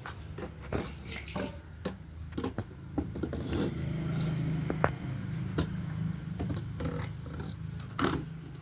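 Lice nitpicking in a person's hair: irregular sharp clicks and rustles over a steady low hum.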